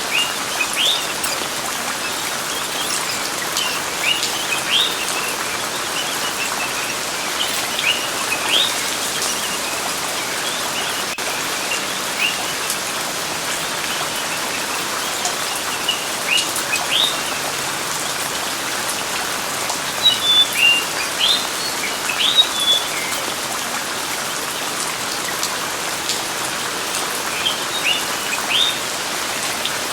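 Steady rain with birds chirping in short, rising calls that come in small clusters every few seconds, busiest about two-thirds of the way through.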